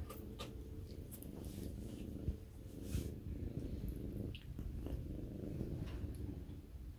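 Brown tabby cat purring steadily while being stroked, close to the microphone, with a few faint rustles of fur and bedding.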